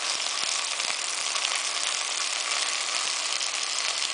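Chopped peppers, cabbage and potato sizzling steadily as they fry in oil in an enamel pot, with faint clicks from a slotted spoon stirring them.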